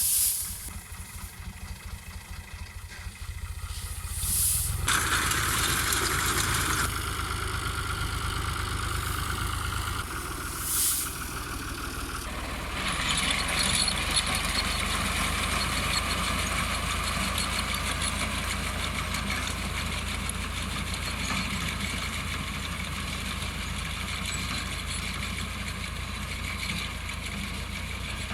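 Tractor engine running steadily, with a broad whirring machinery noise over it that grows louder about five seconds in and again about twelve seconds in.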